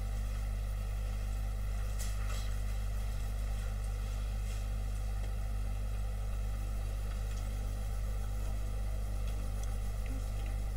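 Steady low electrical mains hum with a faint static hiss, unchanging throughout, with a couple of faint ticks about two and four and a half seconds in.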